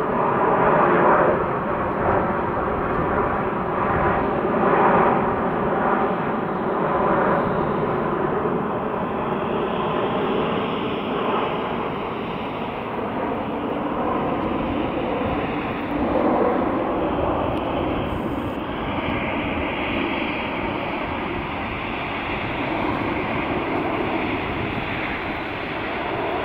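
Boeing 787 Dreamliner's Rolls-Royce Trent 1000 turbofans at approach power as the airliner flies low past with gear down and moves away: a steady jet drone with a whine of several tones through it, throbbing over the first several seconds, the whine turning higher later on.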